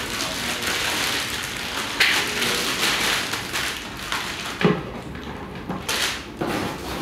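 Thin plastic bag crinkling and rustling as a laptop charger is pulled out of it, with a single knock a little past halfway as the charger is set down on the table.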